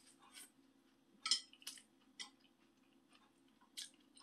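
Mouth sounds of eating a boiled egg: about half a dozen short, soft clicks and smacks of chewing, over a faint steady hum.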